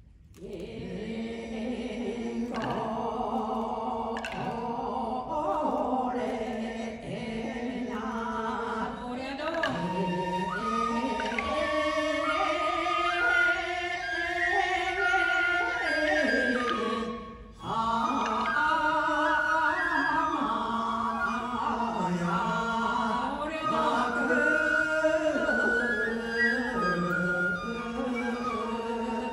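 Japanese folk singing accompanying a taueodori rice-planting dance: long held sung lines that step between notes, with a brief pause just over halfway through.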